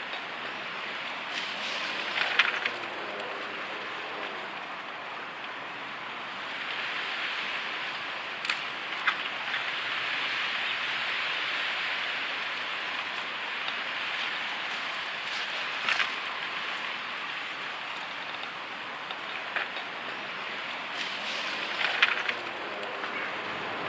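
Steady outdoor hiss of still-water lakeside ambience, with a few sharp, short clicks scattered through it and a slightly louder stir about two-thirds of the way in.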